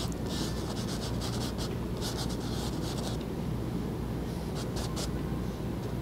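Paintbrush strokes on canvas, scrubbing oil paint on in short repeated swishes, over a steady low hum.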